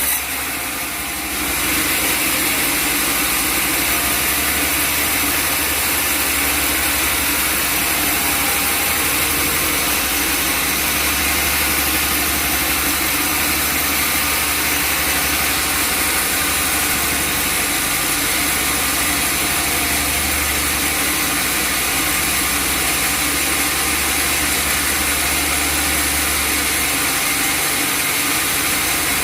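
Sawmill machinery running with a loud, steady noise that becomes louder and more even about a second and a half in.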